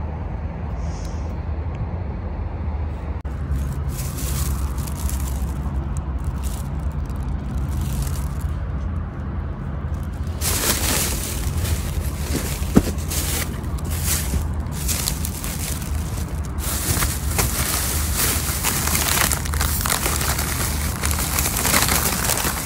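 Steady low rumble with rustling and scraping noise that turns much louder about ten seconds in, with one sharp click a little later.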